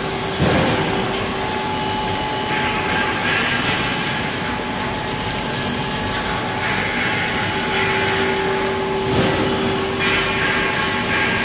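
Haas VF-6 CNC vertical mill face-milling metal under flood coolant: a steady cutting tone over the hiss of coolant spray, with a couple of brief knocks.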